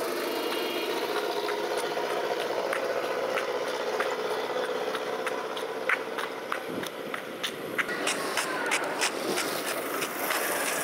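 A vehicle engine running steadily, with sharp ticks scattered through, coming more often from about eight seconds in.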